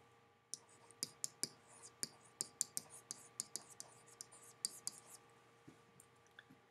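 Stylus tapping and scratching on a writing surface as a word is handwritten: a quick run of short clicks for about five seconds that thins out near the end, over a faint steady hum.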